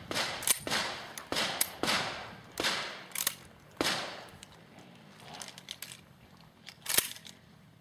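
A string of shotgun shots, each a sharp crack with a short echo, fired in quick succession for about four seconds, then a few fainter shots and one last loud shot about seven seconds in.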